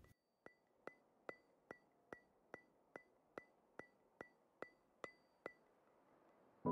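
Thirteen light, evenly spaced ticks, about two and a half a second, each with a brief high ring, like a metronome or clock tick in background music.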